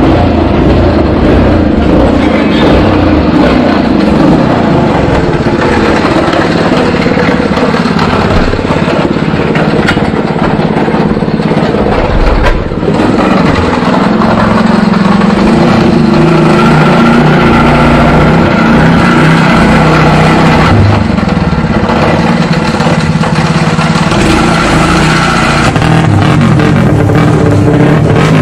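Race motorcycle engine running, heard close up on the bike: revved so that its pitch falls back over the first few seconds, then running steadily as it is warmed up before the ride.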